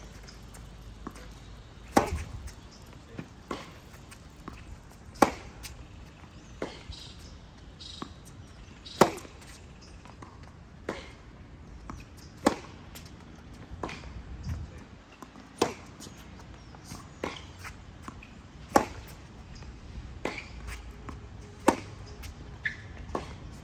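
Tennis balls struck by rackets in a baseline rally on a hard court. A sharp, loud hit comes about every three seconds from the near player's groundstrokes, with fainter hits and ball bounces from the far end of the court in between.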